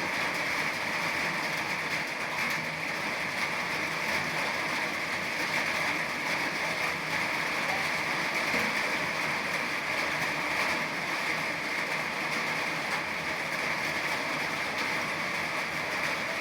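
Steady rain falling, a constant even hiss with no single drops or breaks standing out.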